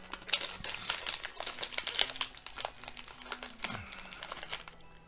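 Plastic candy wrapper crinkling as a pack of watermelon jelly gummies is handled and opened: a quick, uneven run of crackles that thins out near the end.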